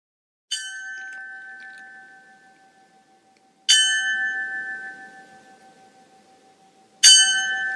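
A single church bell tolling, struck three times about three seconds apart, each stroke ringing on and slowly fading.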